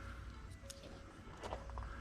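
Quiet background music with short held notes, with a few faint clicks or knocks.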